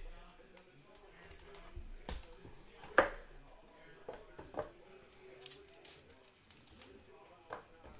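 Panini Contenders Draft Picks foil card packs and their cardboard hobby box being handled and set down on a table: a few short taps and clicks, the sharpest about three seconds in.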